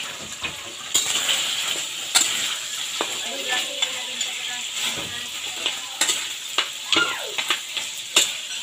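Bone-in meat sizzling in hot oil in a metal wok. It is being stirred, so sharp scrapes and knocks of the utensil on the pan come about once a second over the steady hiss.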